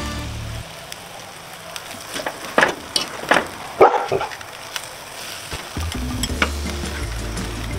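Tortillas sizzling as they fry in beef fat in a steel pan, with a few sharp scrapes and clicks of a metal spatula against the pan in the middle. Background music stops about half a second in and comes back near the end.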